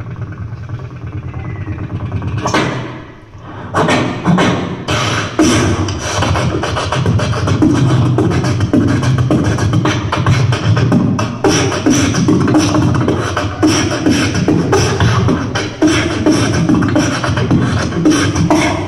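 Beatboxing through a hand-held microphone and PA: a quieter opening, then from about four seconds in a fast, steady run of sharp mouth-made drum beats.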